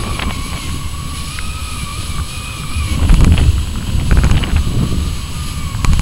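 Strong wind buffeting a camera microphone carried aloft on a kitesurfing kite, a rushing rumble that surges louder about halfway through. A steady thin whistle runs under it, with a few short clicks and rattles.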